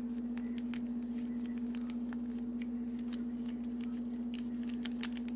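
A steady low hum at one pitch, with light scattered clicks and crinkles from a plastic sauce packet being squeezed out over a bowl of noodles.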